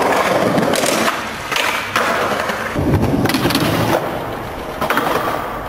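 Skateboard wheels rolling on concrete pavement, broken by several sharp clacks of the board striking the ground.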